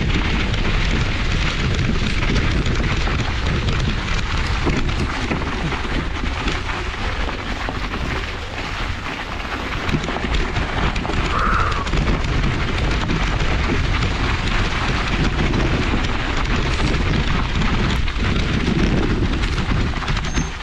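Riding noise from a mountain bike on a snowy forest trail: wind rushing over the action camera's microphone with a steady low rumble, and the crackle and rattle of the bike going over the ground. It eases slightly about eight seconds in, then picks up again.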